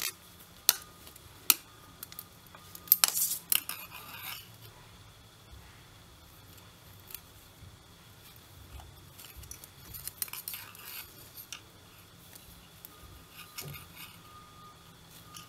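Knitting needle tips clicking and tapping while stitches are picked up along the edge of a knitted square. There are a few sharp clicks in the first four seconds, then only faint ticks and yarn rustle.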